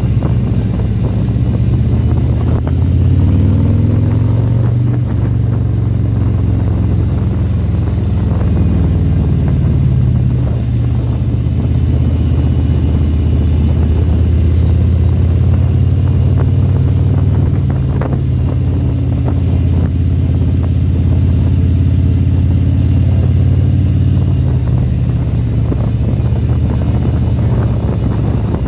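Motorcycle engine running under way, its low note rising and falling several times with the throttle.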